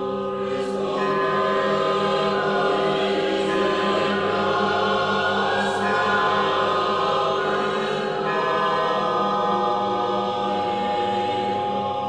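Choral theme music: a choir chanting in long held chords, with three sharp struck accents in the first half.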